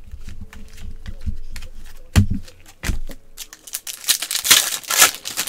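Foil wrapper of a 2018 Panini Prizm football card pack crinkling and tearing in gloved hands as the pack is opened, loudest from about three and a half seconds in. A couple of soft thumps of handling come before it.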